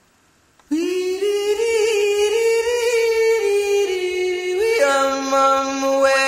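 Music with a sung melody of long held notes that waver slightly, starting less than a second in; a second, lower note joins about two-thirds of the way through.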